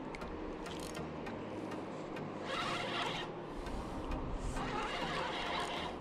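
Spinning reel cranked in two spells of about a second each, its gears whirring as a hooked fish is reeled in.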